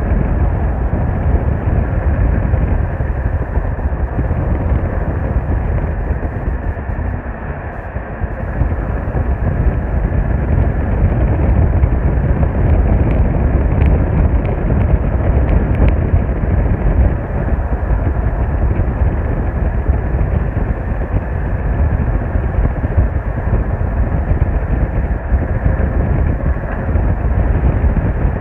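Steady low rumble of a moving vehicle's engine and road noise, heard from inside the vehicle.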